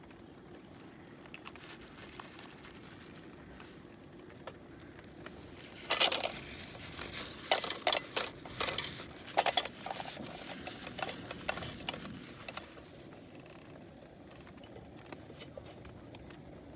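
Crinkling and rustling with sharp clicks and knocks, bunched together in the middle, as food packaging and small cooking items are handled.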